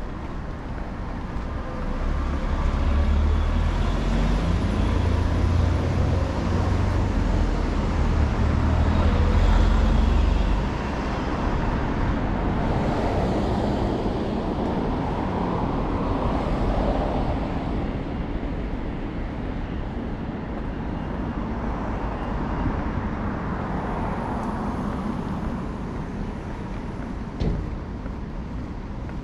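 Road traffic passing: a deep engine rumble for the first ten seconds or so, then the swish of cars going by in rising and falling waves.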